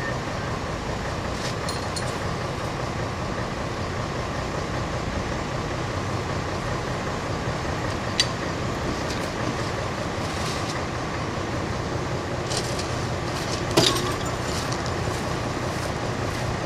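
Steady drone of a diesel engine running, with a sharp metal clank about eight seconds in and a louder one about fourteen seconds in.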